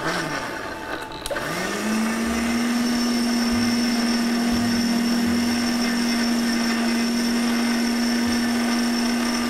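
Electric mixer grinder with a steel jar blending jackfruit and coconut milk. A brief pulse at the start, a click about a second later, then the motor spins up and runs steadily.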